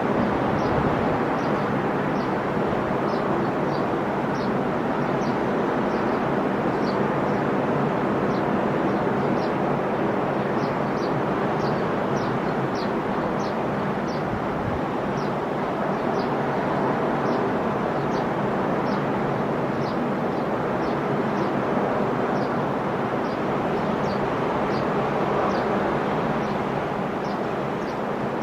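Sea waves breaking and washing onto the shore in a steady wash of surf, with a short high chirp sounding over and over, about one or two a second.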